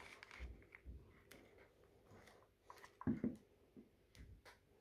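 Faint rustling of plastic packaging and light clicks as cable-box accessories are handled. About three seconds in there is a soft knock as the black power-supply unit is set down on the wooden table.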